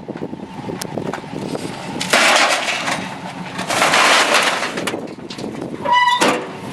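Scrap metal being handled: two long scraping noises about a second apart, then a short high-pitched squeak near the end.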